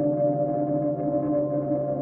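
Ambient background music of long, held tones that ring on steadily like a drone.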